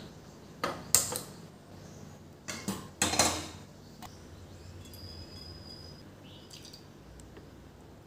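Stainless steel kadai set down on a gas stove's metal pan support: metal-on-metal clanks and rattles in two short clusters, about a second in and about three seconds in.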